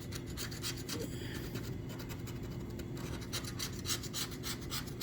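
Scratch-off lottery ticket being scratched: a run of quick rasping strokes, several a second, as the latex coating is scraped off the winning-numbers area.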